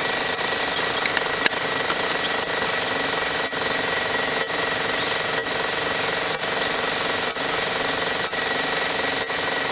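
Electric belt sander running steadily with a constant hum and whine, and a short dip in the sound about once a second.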